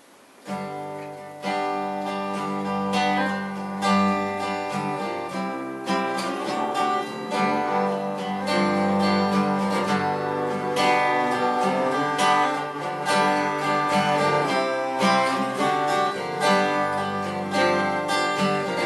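Acoustic guitar strumming a folk song's instrumental introduction with an upright double bass. It starts about half a second in, after near quiet.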